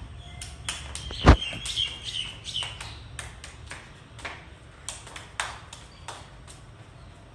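A small child's hand claps: sharp, irregular claps about two or three a second. A heavy thump about a second in, and a brief wavering high chirping just after it.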